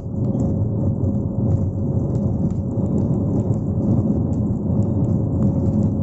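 Airbus A320neo's turbofan engines at takeoff thrust during the takeoff roll, heard inside the cabin beside the engine: a loud, steady roar with a steady hum running through it and faint ticking on top.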